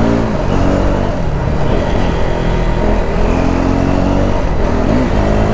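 KTM RC 390's single-cylinder engine running under way, its pitch rising and falling as the throttle opens and closes.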